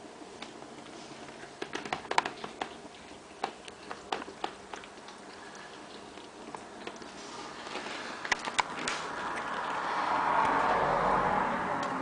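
Kittens eating and moving about in a feeding box: scattered sharp clicks and crunches. Over the last few seconds a rushing noise swells up and fades again.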